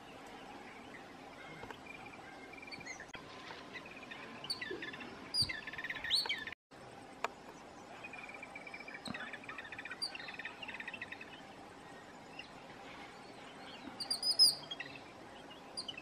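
Jungle babblers calling: bouts of harsh, chattering calls, with a few sharp, high calls near the end and a brief break in the sound around the middle.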